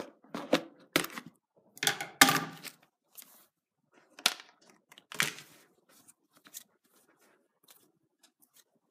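Scissors snipping and cardboard-and-plastic toy packaging tearing and crinkling in several short bursts, the loudest about two seconds in. Softer scattered rustles and knocks follow as the plush hand puppet is pulled free and handled.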